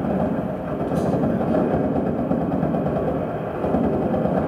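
Volcano seismogram sped up about 200 times and played through loudspeakers: a steady, dense low rumble of countless overlapping pops, each pop one small volcanic earthquake. It is the earthquake swarm, or tremor, building in intensity toward a major eruption.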